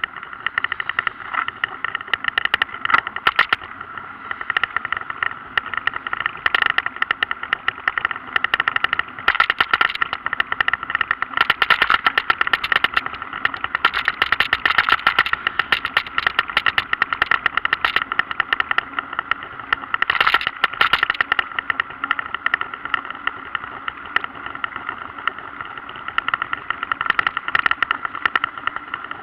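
Continuous fast rattling and clicking from a camera mounted under a mountain bike's saddle, shaken by the bike's vibration as it rides along the road, growing louder in short patches now and then.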